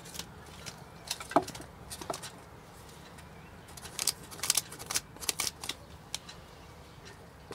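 Light scratches, taps and rustles of a clear plastic ruler and a Sharpie marker against a taped cardboard template, in scattered short strokes with a denser run of them about four seconds in.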